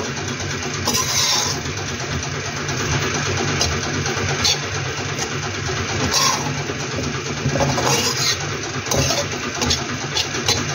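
A steady low machine hum, with a few short clicks and rustles over it about 1, 4.5, 6, 8 and 9 seconds in.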